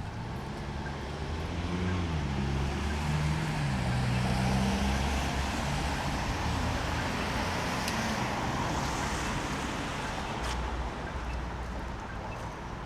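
Road traffic on a wet street: a motor vehicle passes, its engine hum shifting in pitch and its tyre hiss swelling to a peak about four to five seconds in, then slowly fading.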